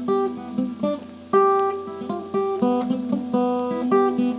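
Acoustic guitar playing the instrumental opening of a song: chords picked and strummed in a steady rhythm, each one ringing out and fading before the next.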